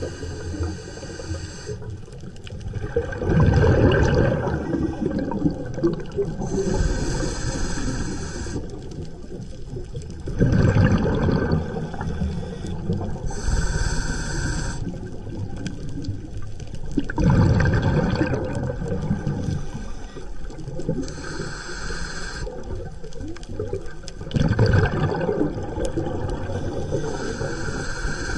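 Scuba diver breathing through a regulator underwater, about four slow breaths. Each breath is a hiss of air through the regulator on the inhale, then a low rumbling gush of exhaled bubbles, repeating roughly every seven seconds.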